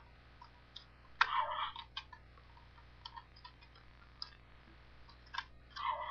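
Irregular plastic clicks from a Ben 10 Disc Alien Ultimatrix toy being handled, with two louder short bursts, one about a second in and one near the end.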